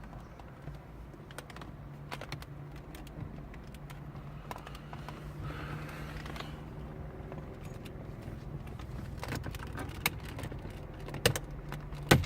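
Hand ratchet with a 9/32 socket clicking in short irregular runs as it works screws loose on car dash trim, with small knocks of tool against plastic and a few sharper knocks near the end. A low steady hum runs beneath.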